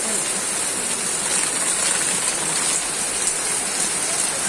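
Rain falling steadily, an even dense hiss.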